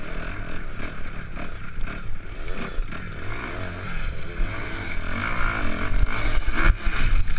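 Dirt bike engine revving up and down in pitch while the bike rides over a loose gravel pile, heard close from a helmet-mounted camera. A few sharp knocks come near the end.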